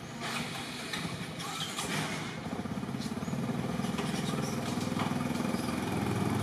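A small engine running with a fast, even low pulse, growing louder from about halfway through.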